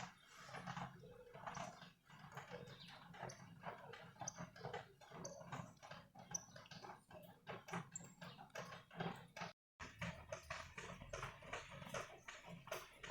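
Quiet, irregular light taps, knocks and small clinks of household objects being handled, with a few short high pings like crockery touching. The sound drops out completely for a moment about ten seconds in.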